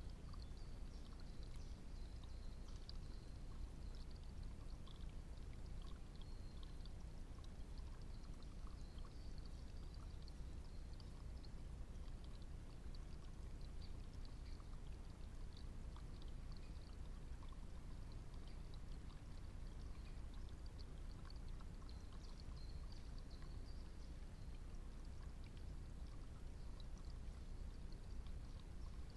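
Faint woodland ambience through a trail camera's microphone: a steady low rumble and hiss, with faint high chirps scattered throughout.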